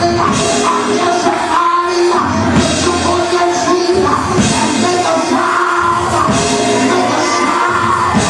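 Loud live praise music from a church band, with drums, singing and yelling voices.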